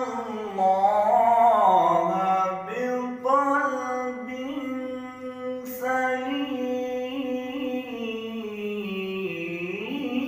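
A man reciting the Quran in the melodic Arabic chanting style, holding long notes that waver and step up and down in pitch.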